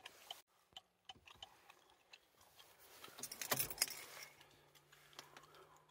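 Light clicks of buttons being pressed on an Opel Insignia's centre-console audio panel, with a brief cluster of louder clicks and rattling about three and a half seconds in, over a faint steady hum.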